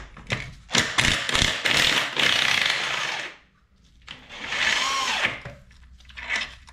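Power wrench spinning out a BMW E36 rear camber arm bolt from its captive nut in the subframe, run twice: a long run, then a shorter one whose pitch rises and falls as it spins up and winds down.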